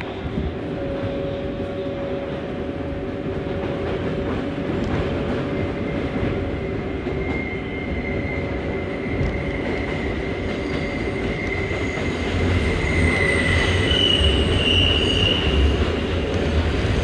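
R188 subway train on the New York 7 line running at speed, heard from inside the car: a steady rolling rumble. From about six seconds in, a high wheel squeal holds and then jumps higher near the end. The rumble grows louder in the last few seconds as another R188 train comes alongside.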